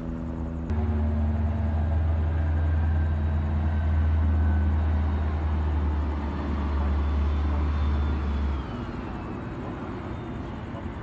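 Low, steady rumble of a nearby motor vehicle engine over street traffic noise. The rumble starts abruptly just under a second in and cuts off about eight and a half seconds in, leaving the quieter traffic hum.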